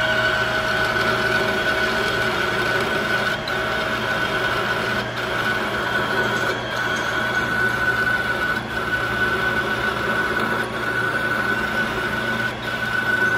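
Metal lathe running with a grooving tool fed into the spinning workpiece, cutting a groove: a steady mechanical whine and hum, with a faint tick every couple of seconds.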